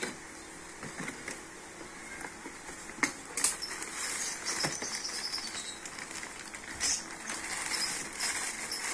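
Cardboard box being opened by hand, with the flaps and handle tab knocking and scraping a few times. From about three and a half seconds in, a plastic wrapping sheet crinkles and rustles as it is handled.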